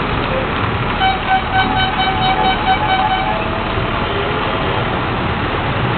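Steady outdoor din of a busy beach promenade. From about a second in, a horn-like tone toots in short pulses for about two seconds.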